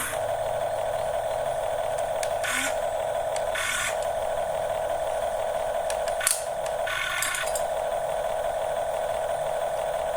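Huina remote-control construction model running: a steady electric whine from its motors or sound unit, broken by several short hissing bursts and a sharp click about six seconds in.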